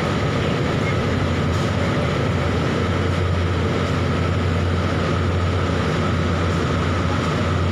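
A roll-on/roll-off car ferry's engines running with a steady low drone and a faint high hum while the ship manoeuvres to berth.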